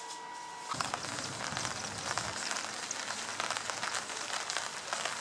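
Rain pattering on a tarp overhead, a dense crackle of drops that starts abruptly about a second in. Before it there is a faint steady tone.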